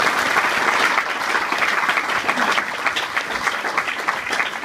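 Audience applauding steadily, a dense patter of many hands clapping, easing slightly near the end.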